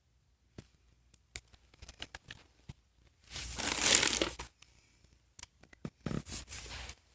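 Small plastic blind bag crinkling in the hands with scattered crackles, then torn open with one long rip a little past three seconds in and a shorter rip near the end.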